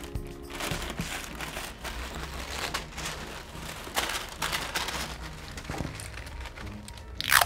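White tissue paper crinkling and rustling as it is folded and wrapped around a bouquet, in irregular crackles. Near the end comes one short, loud rasp as a strip of tape is pulled off its roll.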